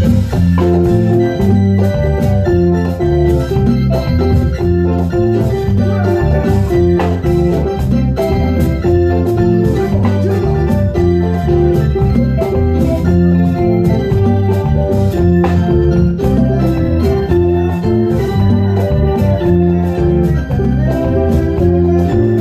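Live band music led by sustained electronic organ chords over low bass notes, with quick percussion hits throughout from a Roland SPD-20 electronic percussion pad played with sticks on conga and bongo sounds.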